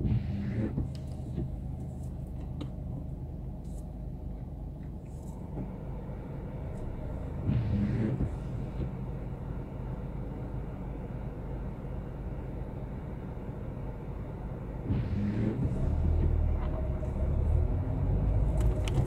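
A car's low engine and cabin rumble while it waits at a red light, with three short sounds about seven seconds apart. The rumble rises from about three-quarters of the way in as the car pulls away on the green.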